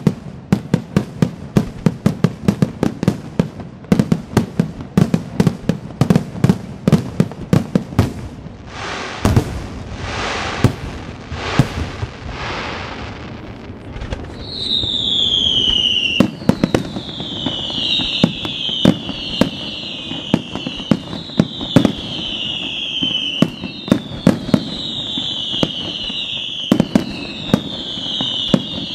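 Fireworks display: a fast volley of shell bursts, several bangs a second, then a few seconds of hissing, then a run of falling whistles repeating every second or two with bangs between them.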